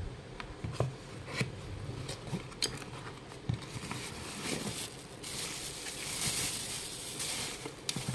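A cardboard box handled and opened, with sharp taps and clicks of the flaps and contents. From about five seconds in comes a longer rustle of plastic wrapping as a plastic alarm clock is pulled out.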